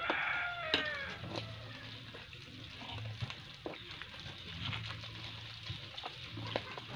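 Pork belly slices sizzling faintly on a tabletop grill, with a few scattered light clicks of a fork against the grill and meat.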